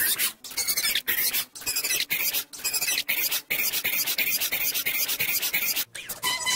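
Heavily processed, pitched-up cartoon logo-bumper audio, chopped into short high-pitched bursts with brief silent gaps between them.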